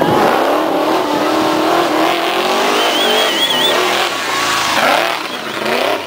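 Off-road race truck's engine revving hard at full throttle, its pitch climbing as it speeds up the dirt road and passes close by near the end. A short warbling whistle sounds about halfway.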